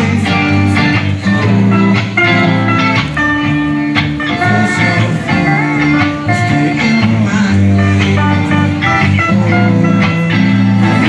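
Live rock band playing, with electric guitars to the fore.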